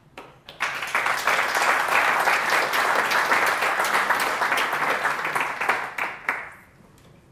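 Audience applauding, the clapping starting about half a second in, holding steady, then dying away near the end.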